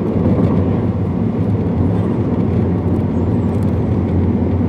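Steady low road and engine rumble of a moving car, heard from inside the cabin.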